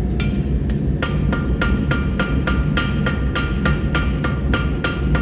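Hand hammer striking a hot steel billet on the anvil during forge welding: a few light taps, then steady ringing blows about three a second, over a steady low rumble.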